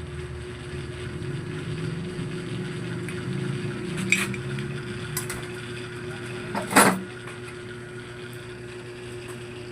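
Metal engine parts and hand tools clinking against each other during engine disassembly. There are a couple of sharp clinks, then one louder clatter about seven seconds in, over a steady low hum.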